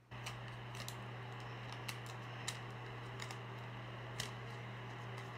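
Clear adhesive tape and a cardboard cut-out being handled and wrapped by hand: scattered sharp clicks and crinkles, about one a second. Under them runs a steady low hum with a hiss that cuts in suddenly right at the start.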